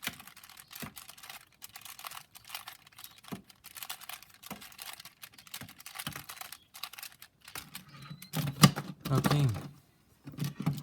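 Plastic clicking and clacking of a Siamese Rubik's Cube, several 3x3 cubes fused together, as its layers are turned again and again to scramble it.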